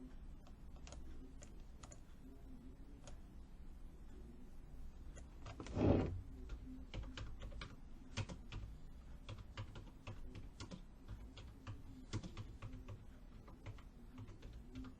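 Typing on a computer keyboard: scattered, irregular key clicks, with one louder brief noise about six seconds in.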